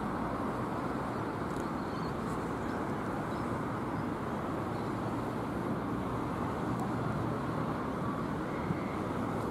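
Steady outdoor background rumble with no distinct event, the noise lying mostly in the low and middle range.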